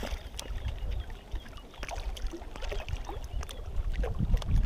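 Steady low rush of water noise from a nearby waterfall, mixed with wind on the microphone, with scattered small splashes and clicks as a brook trout is handled in a landing net in shallow water.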